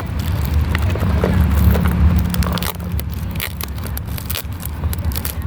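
Doll packaging being handled and opened: irregular crackling, rustling and scraping of cardboard and plastic, over a steady low background rumble.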